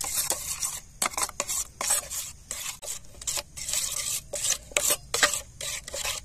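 Setua (freshwater mussels) in their shells being mixed with spice paste and a little water, the shells scraping and clicking against each other and the vessel in quick irregular strokes.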